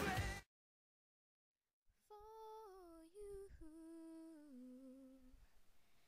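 A pop song with sung vocals cuts off abruptly, followed by a second and a half of silence; then a lone voice hums softly, holding a few slow notes that step downward.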